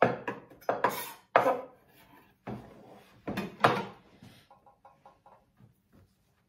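Stainless steel roasting tray loaded with raw pork steaks clattering and knocking against a wooden cutting board as it is shifted by hand, several sharp metallic knocks in the first four seconds, then only faint handling sounds.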